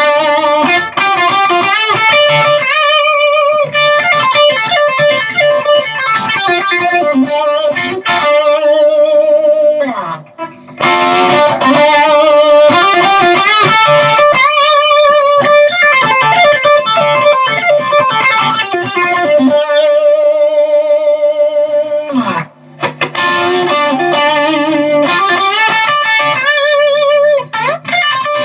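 Electric guitar played through a Mooer Green Mile overdrive pedal, a Tube Screamer clone, into a valve amp. The same riff is repeated with the pedal switched on and off, with short breaks about 10 and 22 seconds in.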